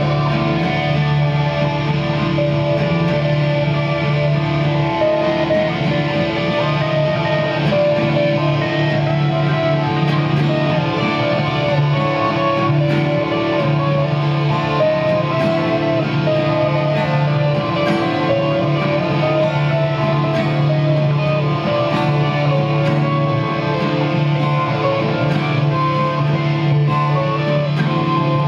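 Acoustic guitar strummed steadily together with an electric guitar: an instrumental guitar passage with no singing.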